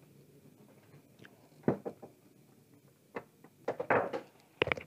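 Scattered light clicks and taps as multimeter test probes are handled and touched to an LED TV backlight strip.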